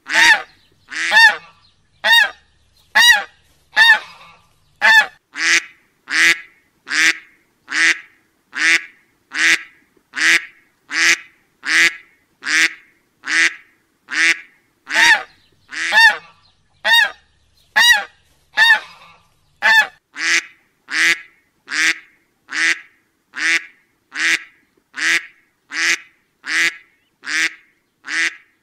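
Duck quack sound effect: a short honking quack repeated about once a second in a steady, even rhythm.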